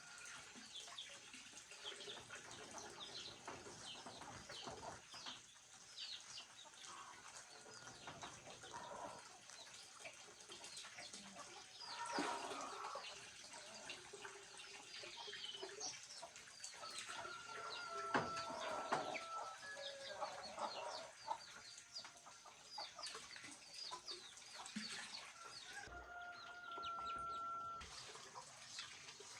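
Chickens clucking and small birds chirping throughout, with a few knocks and a couple of held whistle-like tones, one near the middle and one near the end.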